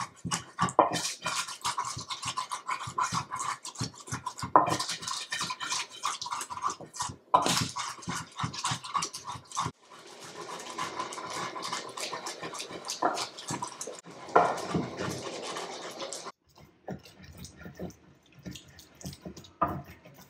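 Hand-grinding soup ingredients with salt in a bowl: rapid, rough scraping and rubbing strokes. They turn into a steadier rubbing about halfway through and go quieter in the last few seconds.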